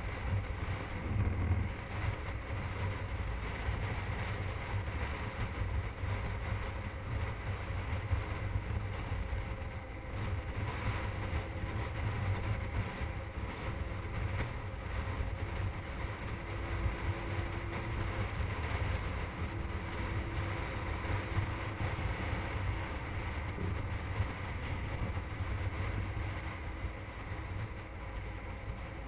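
Motorcycle engine running steadily at cruising speed with wind rushing over the on-bike camera, a constant low rumble throughout.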